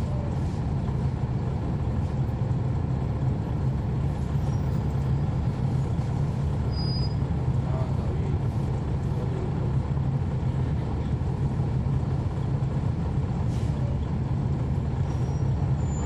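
Cummins ISL9 diesel engine of a NABI 40-SFW transit bus heard from on board, running steadily with no change in pitch throughout.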